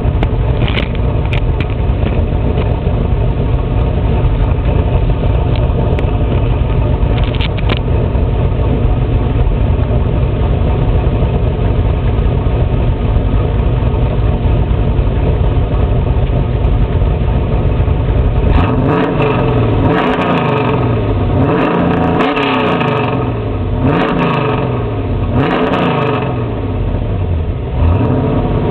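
1997 Camaro Z28's LT1 V8, with an aftermarket cam, wrapped long-tube headers and a Flowmaster muffler, heard from the exhaust end while it idles steadily. About two-thirds of the way in it is revved in a string of quick throttle blips, one every second or two, each rising and falling.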